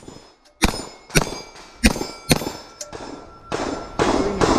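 Staccato XL 2011 pistol firing a fast string at steel plates: a shot at the start and four more in the next two and a half seconds, with steel plates ringing after the hits.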